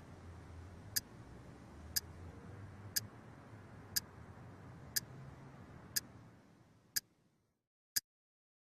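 Alarm clock ticking steadily once a second, over a faint low hum that fades away about seven seconds in, leaving the ticks alone.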